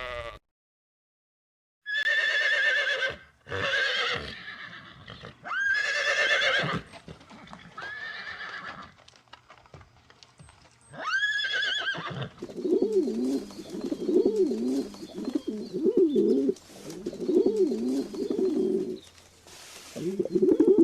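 A horse whinnying about five times, high calls with a shaky, wavering pitch, followed by a run of low, warbling calls repeated about once a second.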